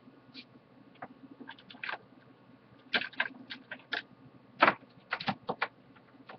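Irregular sharp clicks and knocks of small items being handled and set down on a workbench, sparse at first, then louder and closer together from about halfway, over a faint steady hum.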